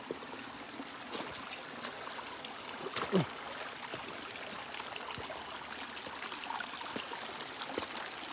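Small forest stream trickling and running steadily over rocks, with scattered light clicks and a short louder knock about three seconds in.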